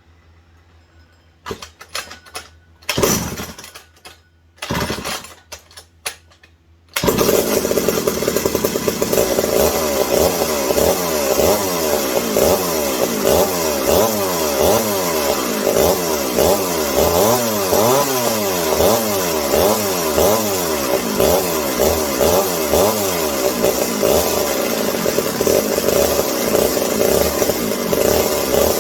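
McCulloch 740 two-stroke chainsaw engine: two short bursts, then about seven seconds in it starts and keeps running, its speed rising and falling over and over. The owner puts the unsteady running down to carburettor problems.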